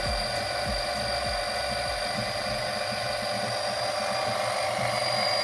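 Small electric oil extractor pump running steadily with a motor whine, sucking automatic transmission fluid out of the 4L60E through the dipstick tube to drain it.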